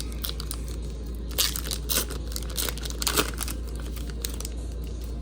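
Plastic card packaging being crinkled and torn while trading cards are handled, with a cluster of sharp crackles between about one and a half and three seconds in, over a steady low hum.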